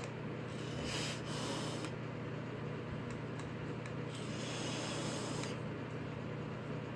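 Breathy hiss of a person taking a hit from a vape with a mesh tank and breathing out the vapor, heard as two hisses, about a second and a second and a half long, a few seconds apart over a steady low hum.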